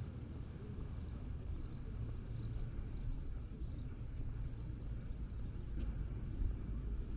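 Outdoor ambience on a walk: a steady low rumble with faint, short high chirps repeating every second or so.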